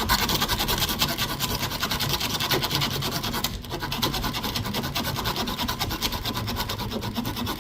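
Leatherman Arc multitool saw blade sawing through a hard collagen dog chew with quick back-and-forth strokes, a steady rasping, with a brief pause about three and a half seconds in.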